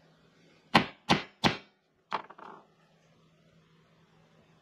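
Three quick hammer blows on a steel letter stamp, punching a letter into a small brass spinning-top piece, followed by a lighter, short clatter of metal on metal.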